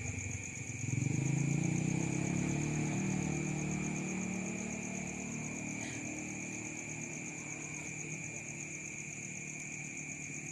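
A motor vehicle's engine passing by, coming up about a second in and slowly fading away, over steady high-pitched cricket chirping.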